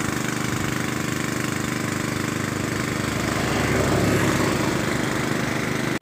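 An engine running steadily, growing a little louder around four seconds in.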